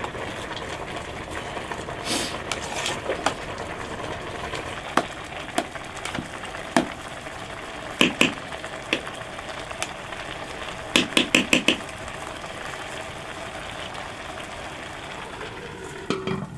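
Steady hiss of food cooking in a pot, with a spoon clinking against the pot now and then, including a quick run of about five clinks around the middle.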